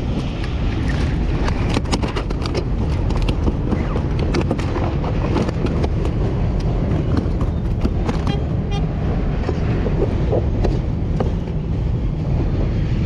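Wind buffeting the microphone in a steady low rumble, with scattered clicks and knocks of handling throughout.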